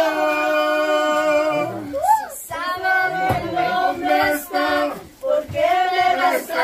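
A group of people, women's voices the most prominent, singing a Mexican ranchera together. They hold one long note at the start, then go on into further sung lines.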